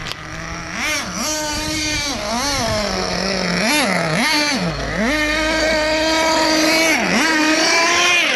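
1:8 scale RC car's small fuel engine revving in quick blips up and down, then held high for about two seconds before a brief dip near the end.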